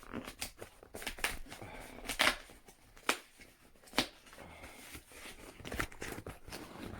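Handling noise from a cardboard vinyl record box set: scattered rustles and light taps as it is turned over and handled, with sharper knocks about two and four seconds in.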